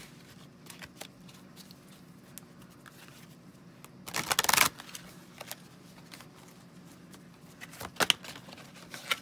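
Oracle cards being handled: a short shuffling rustle about four seconds in, then a few sharp clicks and taps near the end as a card is drawn and set down, over a faint steady room hum.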